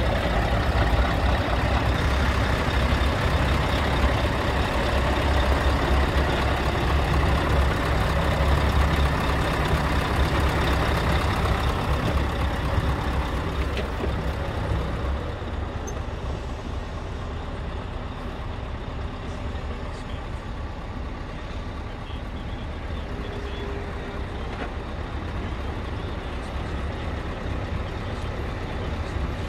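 Scania R tractor unit's diesel engine idling steadily with a low rumble. It is louder at first and becomes quieter and more muffled from about 14 seconds in, once heard from inside the cab.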